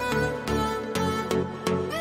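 Background music: instrumental, melodic lines over a steady beat.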